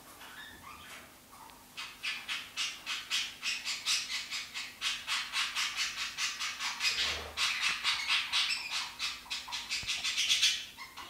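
Female veiled chameleon chewing cucumber: quick, crisp crunching in an even rhythm of about four to five bites a second. It starts about two seconds in and stops near the end.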